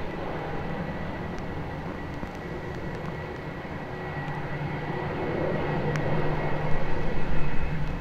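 ATR 72-600 turboprop's engines running as the plane lines up on the runway for takeoff: a steady hum and whine that grows louder over the last few seconds. A low rumble of wind runs under it.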